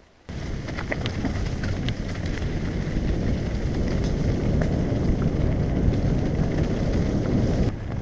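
Mountain bike riding fast on a leaf-covered dirt track: wind buffeting the camera microphone over the rumble of the tyres, with scattered small clicks. It starts suddenly about a quarter second in and cuts off just before the end.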